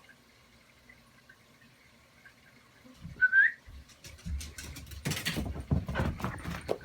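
A single short rising squeak about three seconds in, then from about four seconds a busy run of knocks, taps and scuffling as a cat and a dog play-fight, their paws and bodies hitting the floor.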